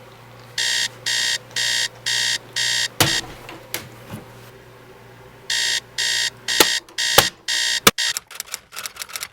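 Electronic alarm clock beeping in short harsh bursts about two a second, five beeps, a pause of a couple of seconds, then about five more. Sharp clicks or knocks fall between the beeps and come in a quick flurry near the end.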